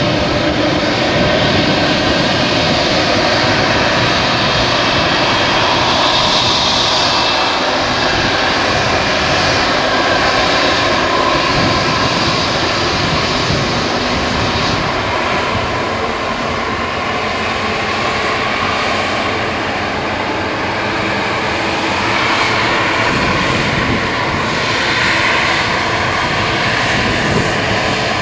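Airbus A220-300's twin Pratt & Whitney PW1500G geared turbofans running at taxi power as the airliner rolls off the runway onto the exit taxiway and past: a steady jet rush with a whining tone that grows a little stronger near the end.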